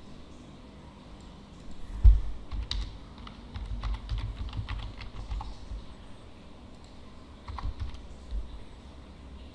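Typing on a computer keyboard: a run of keystrokes starting with a heavy thud about two seconds in, then a few more keystrokes near the end.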